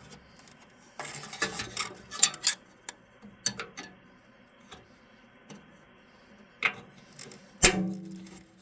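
Small metallic clicks and taps of an Allen wrench working a screw inside an old HP 606A signal generator's chassis, with one loud sharp crack and brief ringing near the end, as a very tight screw breaks loose.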